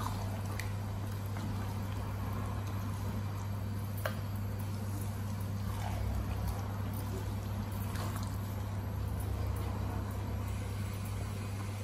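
Thick tomato sauce with chicken and peppers simmering in a karahi while a wooden spatula stirs it, with a few light knocks of the spatula against the pan. A steady low hum runs underneath.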